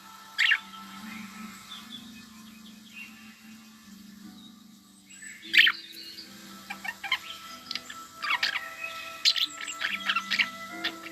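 Budgerigars chirping: a sharp call about half a second in, another about five and a half seconds in, then a busy run of short chirps through the last few seconds.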